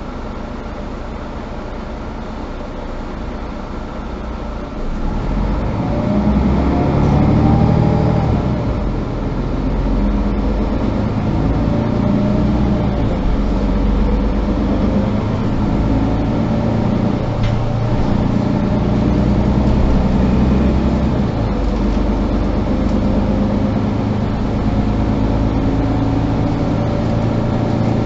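Mercedes-Benz Citaro G articulated bus's diesel engine heard from inside the bus. It runs quietly for about five seconds, then gets louder and rises in pitch as the bus accelerates. The note eases briefly about nine seconds in and settles into a steady run under way.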